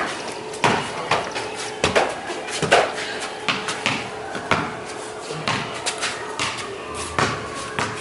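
A basketball bouncing on a concrete slab and banging off a wall-mounted hoop: a string of sharp, irregular thuds, one or two a second.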